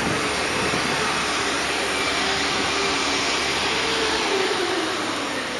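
Steady rushing noise of city street traffic mixed with wind on a moving body-worn camera's microphone, with a faint falling tone about four seconds in.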